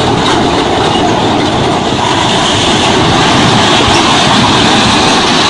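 A concrete wall collapsing under a toppling concrete mixer truck: a loud, continuous crash of falling concrete panels and debris lasting several seconds.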